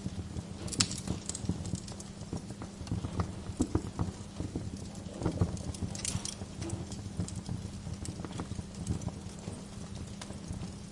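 Wood burning in a fireplace, crackling with irregular sharp pops and snaps over a steady low rumble.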